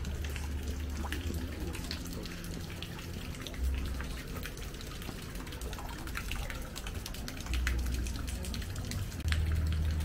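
Outdoor garden ambience: a low wind rumble on the microphone that swells several times, with a scatter of small clicks and crackles throughout.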